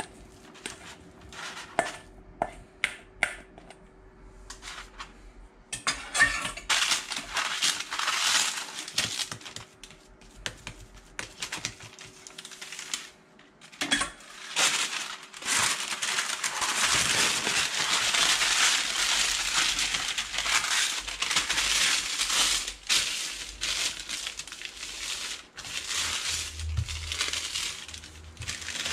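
A spatula scrapes and taps against a stainless-steel mixing bowl in a series of sharp clicks. About six seconds in, continuous crinkling of baking parchment begins as hands press and flatten the seeded crispbread dough between sheets of baking paper.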